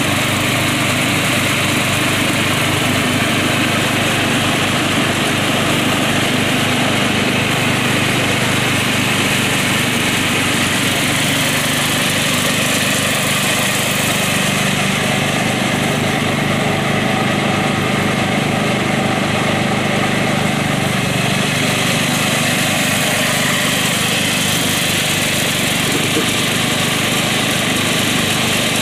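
Murray 12 hp riding lawn mower running steadily under load while mowing tall grass, its engine and cutting deck sounding at an even level.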